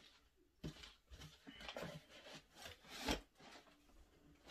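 Cardboard shoe boxes being handled and shifted: rustling and rubbing with several light knocks, the loudest about three seconds in.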